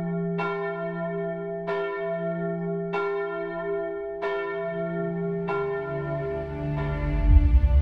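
A church bell tolling slowly, struck six times about 1.3 seconds apart, each stroke ringing on into the next. Near the end a low swell of music comes in under it.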